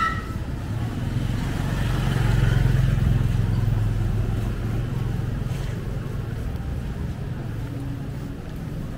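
A motor vehicle's engine running close by, getting louder about two seconds in and then fading away slowly as it passes.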